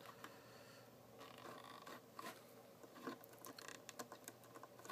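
Faint clicks and light rubbing as a small plastic Revoltech action figure is handled and posed on its stand, its ratcheting joints ticking as the limbs are moved. There is a quick run of ticks a little past the middle.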